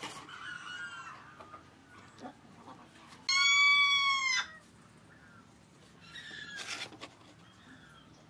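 An animal's call: one loud, even-pitched cry lasting about a second near the middle, with fainter short chirping calls before and after it.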